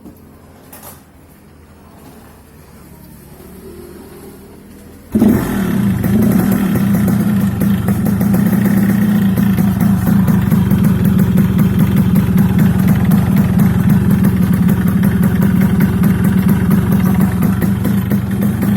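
Yamaha RX-King's two-stroke single-cylinder engine starting abruptly about five seconds in and then running steadily, loud with a fast pulsing beat, through an opened-up exhaust whose stock silencer baffle has been split open.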